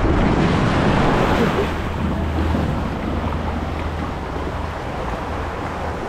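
A raft rushing down a water slide: water hissing and splashing around the raft, with wind rumbling on the microphone. It eases off a little about a second and a half in as the raft slows into the flat runout pool.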